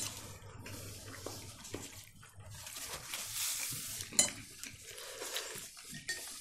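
Forks and dishes clinking at a meal table, with a sharp clink right at the start, another about four seconds in, and smaller scrapes and clicks in between.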